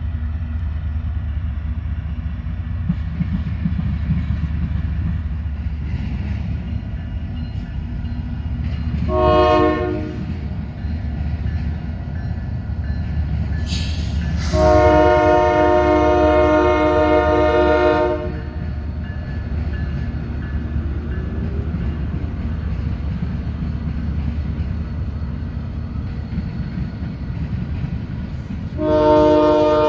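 Diesel freight locomotives running with a steady low rumble as they approach a grade crossing, sounding a multi-note air horn for the crossing. There is a short blast about nine seconds in, a long blast of about three and a half seconds around fifteen seconds in, and another long blast starting just before the end.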